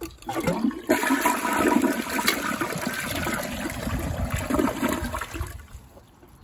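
A toilet flushing: water rushes into the bowl and swirls down the drain, taking a cloth down with it. The rush starts about a second in, lasts about four and a half seconds, then drops to a quiet trickle as the bowl refills.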